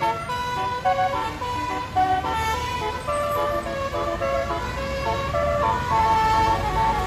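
Bus 'telolet' musical air horn playing a tune of held notes that step up and down in pitch, over a low engine rumble.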